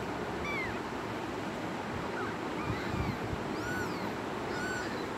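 Two-week-old kittens' faint, high mews: about four short, arching cries about a second apart, over a steady background hiss.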